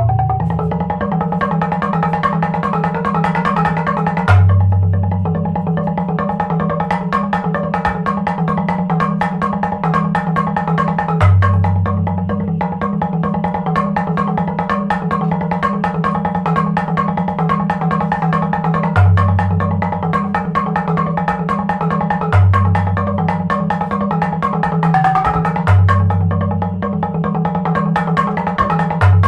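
Live minimal percussion music: a fast, unbroken stream of repeated mallet-struck notes. A deep low note sounds six times, each a loud accent that fades over about a second.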